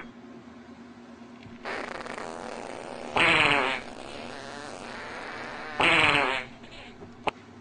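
Two cats fighting: a long raspy hiss, then two short screeching yowls a couple of seconds apart.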